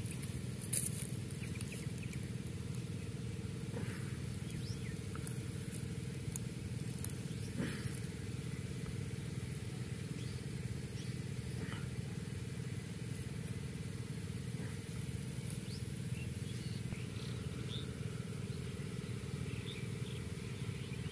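A motor running steadily: an even low drone at a constant pitch, under a faint steady high hiss and a few light ticks.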